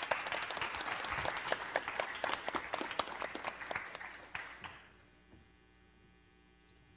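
Audience applauding, many hands clapping together, dying away about five seconds in.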